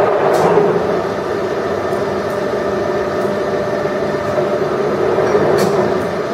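Ryazan 1M63D screw-cutting lathe running under power, giving a steady mechanical hum with a whine of steady tones from the drive.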